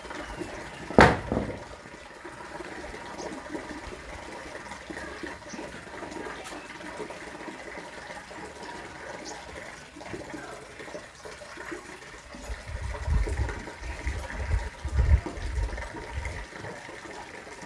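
Top-loading washing machine running with water swishing and gushing while wet clothes are lifted out of it. There is a sharp knock about a second in and a few heavy low thuds in the last few seconds.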